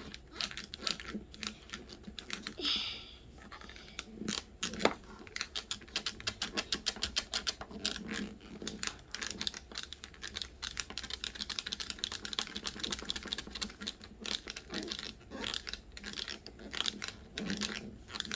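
Rapid light clicking and tapping from small plastic Play-Doh tools being handled on a hard surface, several clicks a second, quickest in the middle, with a few heavier knocks near the start.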